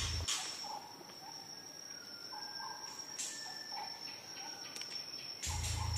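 Faint savanna ambience: insects holding a steady, high-pitched drone, with a few short bird chirps now and then.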